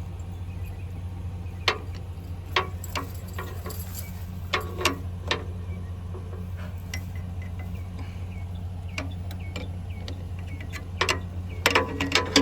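Scattered sharp metallic clicks and clanks, like hand tools being handled during tractor repair work, over a steady low hum. The clicks come closer together near the end.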